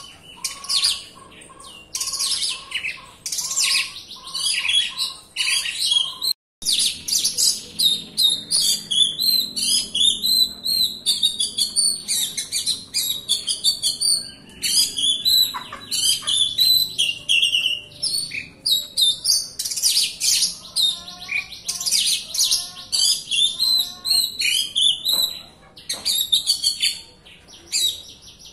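Oriental magpie-robin (kacer) singing hard: a fast, varied stream of high chirps, whistles and trills with hardly a break. A lower note repeats about twice a second in the first few seconds, and the sound cuts out for an instant about six seconds in.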